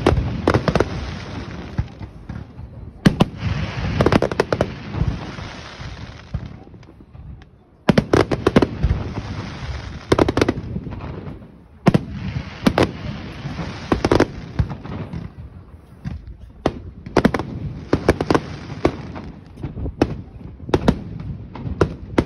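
Aerial fireworks display: shells bursting in a fast, irregular run of sharp bangs. For most of the first fifteen seconds a dense crackling hiss fills the gaps between them, dropping away briefly about seven seconds in.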